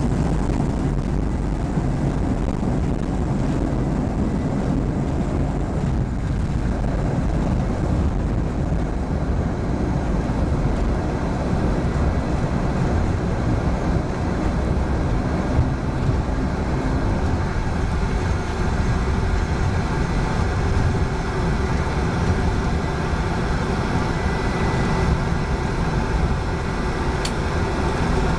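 Steady drone of a small high-wing propeller aircraft's engine, heard from inside the cabin as the plane taxis on the ground after landing. A single brief click near the end.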